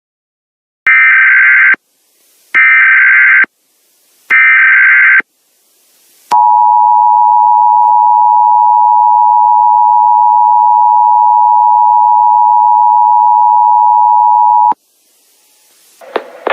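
Emergency Alert System tones: three short bursts of warbling SAME header data, about a second apart, then the steady two-tone EAS attention signal held for about eight seconds before it cuts off.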